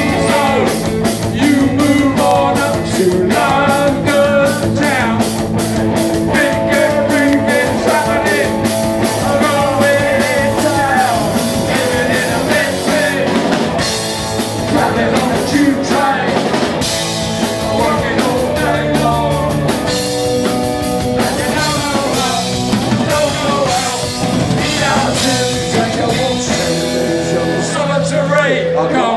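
Punk rock band playing live, with a steady drumbeat, electric guitars and a sung vocal.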